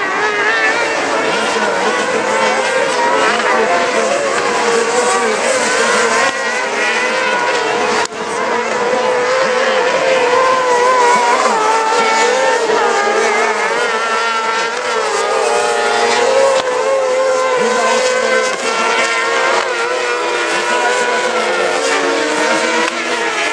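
Several kart-cross racing karts' engines running together at speed on a dirt track, with overlapping pitches rising and falling as the drivers rev and shift. The sound drops briefly about eight seconds in.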